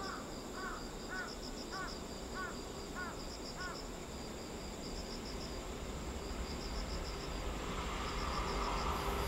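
Insects chirping in steady pulsed bursts, and a bird giving a run of short calls, a little under two a second, for the first four seconds. Over the last couple of seconds the approaching EF81 electric locomotive and its freight train grow louder as a rising rumble with a steady hum.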